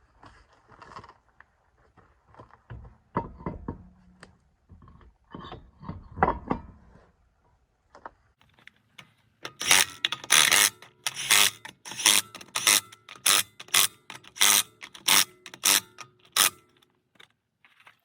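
A wheel going back onto the hub with scattered metal clunks and knocks. Then the lug nuts are run down with a wrench in about a dozen short, evenly spaced rattling bursts, about one and a half a second.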